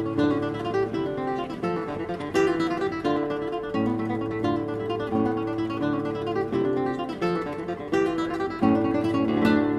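Background music: an acoustic guitar playing a steady run of plucked chords that change every second or so.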